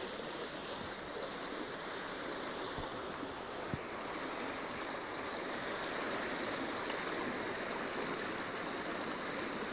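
Shallow mountain stream running over rocks: a steady rushing of water, with one faint tap a little under four seconds in.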